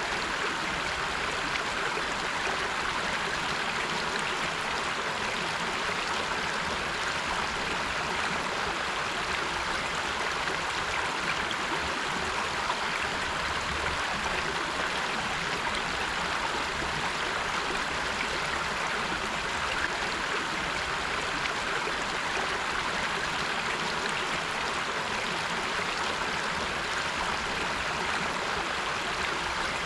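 River water rushing and splashing steadily, an even flowing noise without pauses.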